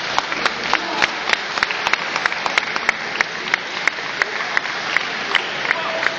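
Scattered applause from a small crowd: separate hand claps, a few each second, over a steady background of crowd noise.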